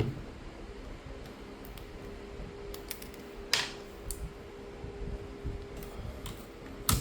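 Light clicks and taps of a smartphone and small tools being handled on a workbench while its screen is worked loose, with two sharper clicks about three and a half seconds in and near the end. A faint steady hum runs underneath through the middle.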